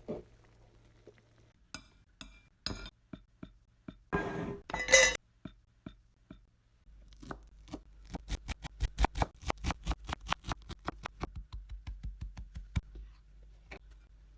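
Knife chopping on a cutting board in a quick, even rhythm of about six strokes a second, after a few scattered knocks and a short noisy clatter.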